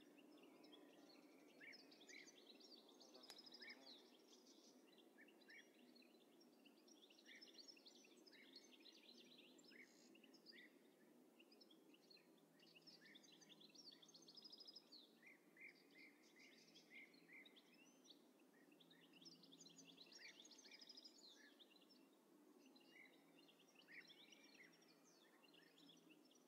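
Very faint birdsong: many short chirps and calls from several birds over a low, steady background noise.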